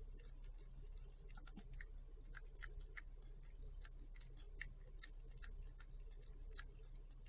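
Faint, irregular wet mouth clicks of a mother animal licking and cleaning her newborn right after its birth, over a steady low hum.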